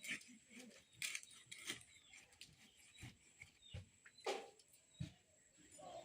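Faint, irregular clicks and scrapes of a rohu fish being cut up with a blade, with one louder scrape about four seconds in.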